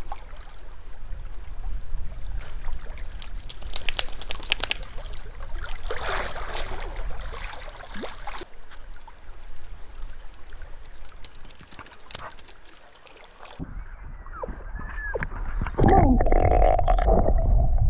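Water splashing and sloshing in irregular bursts, over a steady low rumble of wind on the microphone that grows louder near the end.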